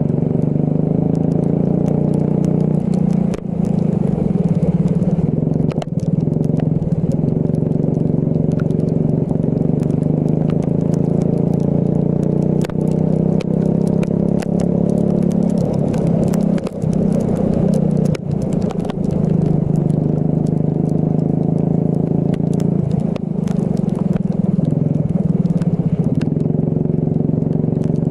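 Racing kart engine running hard, its pitch rising and falling as it accelerates and lifts off, with scattered clicks and rattles over it.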